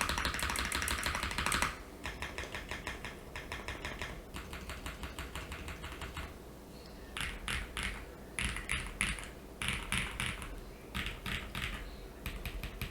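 Mechanical keyboard typing on stock, factory-lubed JWK Bluey linear switches in a polycarbonate-plate keyboard with plate and case foam, with GMK keycaps. A fast, dense burst of keystrokes comes first. Steadier typing follows, and from about halfway on the keys are struck in short separate clusters of a few strokes each.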